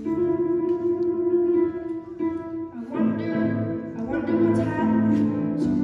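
Music: a boy singing a solo into a microphone over an instrumental accompaniment track with a plucked, guitar-like part; the voice comes in more clearly about halfway through.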